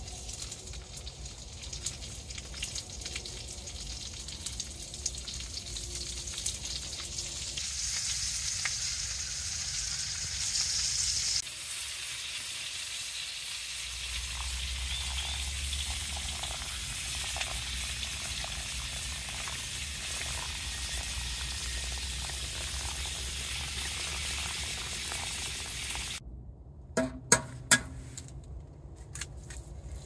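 Breakfast frying in a pan: a steady sizzle that changes abruptly about a third of the way in and falls away near the end, where a few sharp knocks sound.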